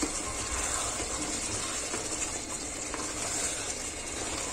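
Thick chicken masala sizzling and bubbling in a steel pot as it is slow-fried down (kosha) and stirred with a wooden spatula, with a few faint knocks of the spatula.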